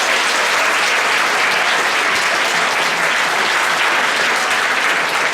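Audience applauding steadily right after a song and dance performance ends.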